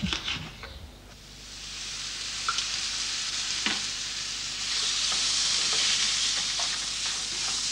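Strips of cuttlefish and onion frying in olive oil in a frying pan, stirred with a spatula. The sizzling hiss builds up over the first couple of seconds and grows louder about halfway through, with a few light knocks of the spatula against the pan.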